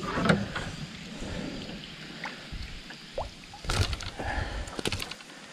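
Water lapping and dripping around a small fishing boat, with a couple of short sharp knocks near the end.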